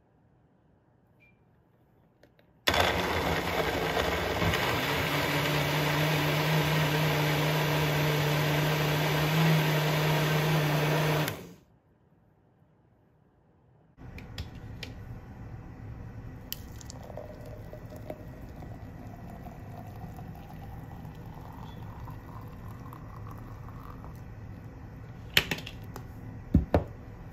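Personal blender motor running steadily for about nine seconds as it blends fruit and milk into a smoothie, then cutting off. Later the smoothie is poured into a glass, with a rising fill tone as it fills, followed by a few sharp knocks near the end.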